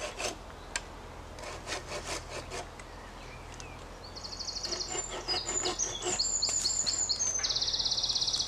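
Light knocks and rustles of dead wood sticks being handled, then from about halfway a songbird's long, high, trilling song in several stepped phrases, louder than the handling.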